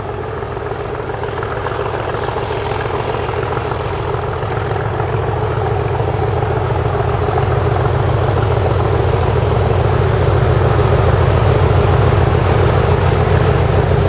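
Diesel locomotive hauling a passenger train, its engine running hard with a deep, steady throb that grows steadily louder as it approaches.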